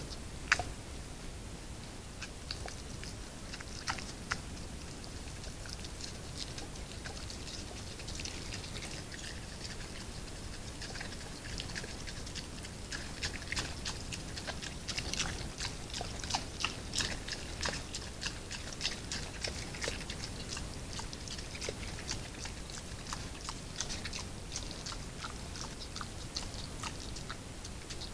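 Wild boar chewing and crunching food as it forages with its head to the ground: a long run of small crisp clicks that grows busier about halfway through, over the steady hiss of a trail camera's microphone.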